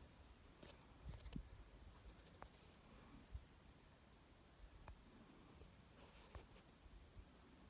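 Faint chirping of an insect, a high pulsed call repeating evenly about two to three times a second, over a low wind rumble with a few soft ticks.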